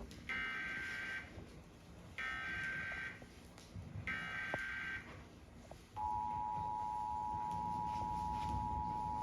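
Emergency Alert System SAME header: three bursts of warbling digital data tones, each about a second long and a second apart, announcing an EAS alert or test. About six seconds in, the steady two-tone EAS attention signal begins and holds.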